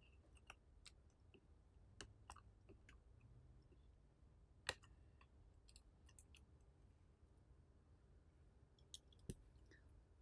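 Faint, scattered small clicks of an iPhone 6s's flex-cable connectors being popped off the logic board and the parts handled with a plastic prying tool, the sharpest click about halfway through.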